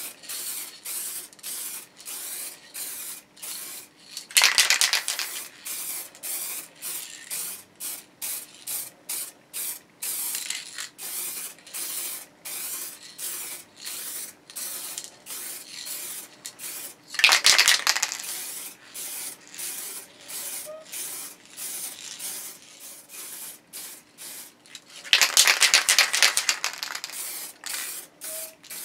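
Aerosol spray can of paint hissing in short, quick bursts, about two to three a second, as a first coat goes onto a guitar body, with three longer, louder blasts, about 4 s, 17 s and 25 s in.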